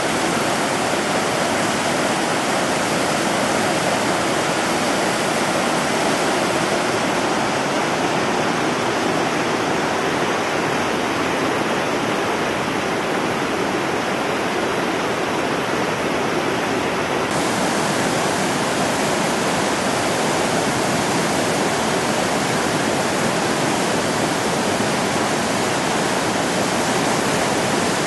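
Creek in flood after heavy rain: fast, muddy water rushing over rocks and through trees, a loud, steady rush. The hiss in the upper range brightens abruptly about two-thirds of the way in.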